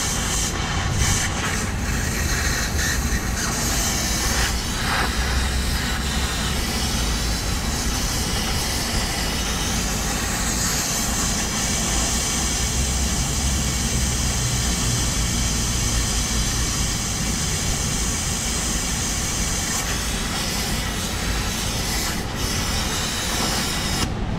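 Oxy-fuel cutting torch flame hissing steadily against a steel control arm. The hiss grows higher and stronger about ten seconds in, eases back near twenty seconds, and cuts off just before the end.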